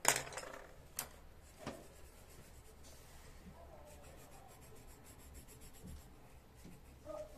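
Coloured pencil scratching lightly on paper as an area is shaded in, with a few sharp clacks in the first two seconds, the first the loudest.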